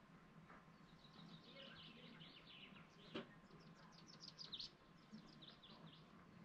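Faint songbird calls: many quick, high chirps, each falling in pitch, growing busier in the second half. There is a single click about three seconds in.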